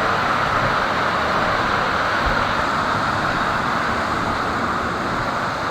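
Steady rushing water of a waterpark river rapids ride.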